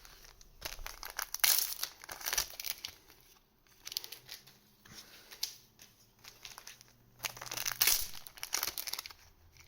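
Trading card booster pack wrappers crinkling and tearing as packs are opened by hand, in irregular bursts that are loudest about a second and a half in and again near the end.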